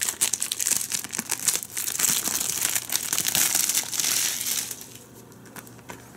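Plastic shrink-wrap being peeled off a Blu-ray case and crumpled by hand: a dense crinkling that dies down about five seconds in.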